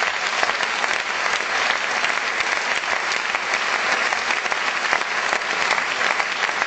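An audience applauding steadily: many hands clapping at once.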